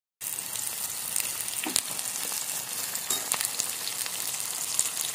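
Sliced onions sizzling and crackling in hot oil in an aluminium kadai, starting abruptly. A slotted metal spoon stirs them, adding a few sharp ticks.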